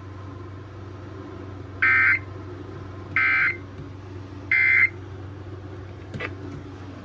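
Three short screeching data bursts from a NOAA Weather Radio broadcast, evenly spaced about a second and a third apart: the EAS/SAME end-of-message code that closes the test alert.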